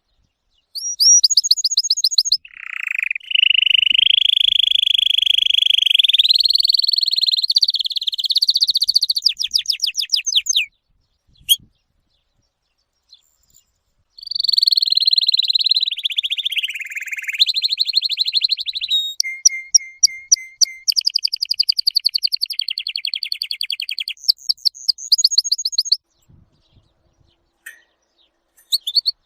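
Songbird singing long, varied phrases of fast trills and held whistled notes, in two long stretches with a pause of a few seconds in the middle.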